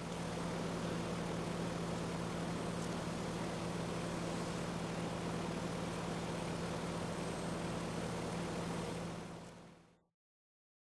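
YESS compact street sweeper running while standing still: a steady engine and fan noise with a constant low hum, which fades out near the end.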